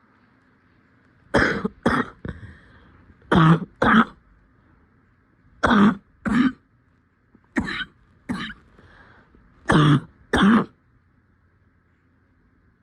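A person coughing in a repeated double-cough pattern: five pairs of short coughs about two seconds apart, then it stops.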